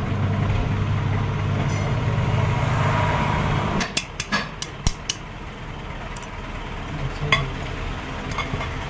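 Massey Ferguson tractor engine running steadily, then cutting off just under four seconds in, followed by a handful of sharp metallic clinks.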